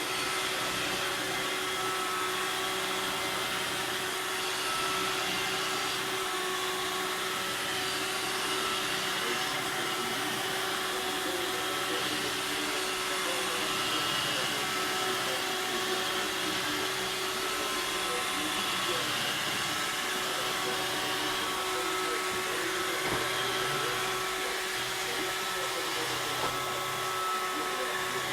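Robot vacuum cleaner running: a steady motor hum with a constant whine.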